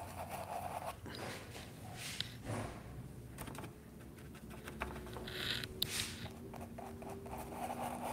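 Small scattered taps and brief scrapes of a paintbrush picking up and working oil paint on a wooden palette.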